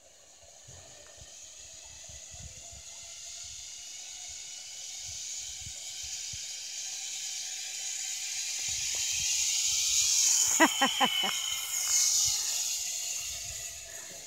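Zip line trolley pulleys running along the steel cable: a whirring hiss that grows steadily louder as the rider approaches, peaks as it passes, then fades as the rider runs on down the line. A quick cluster of about four short pulses sounds as it goes by.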